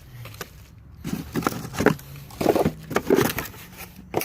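Packaging rustling and crackling in short bursts, with small knocks, as a cordless impact driver is handled and lifted out of its box.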